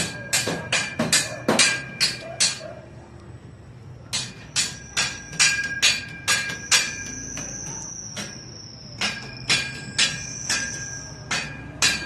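A hammer striking steel in quick runs of about four blows a second, each blow ringing metallically, with short pauses between runs. A thin high whine sounds through the second half.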